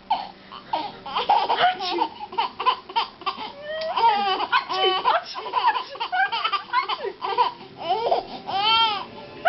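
A baby laughing in short high giggles and squeals that rise and fall in pitch, with a longer arching squeal near the end.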